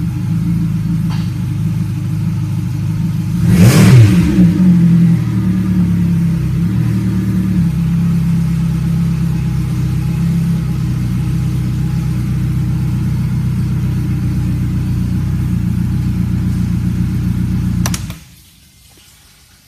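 Selva 115 XSR Tarpon four-stroke outboard idling steadily, with one short rev about four seconds in. The engine is switched off with the key near the end and stops suddenly.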